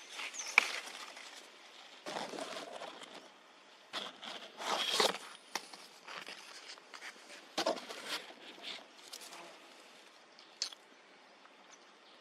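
Irregular rustling and crunching with a few sharp clicks, the sharpest just after the start and the longest, loudest rustle about five seconds in.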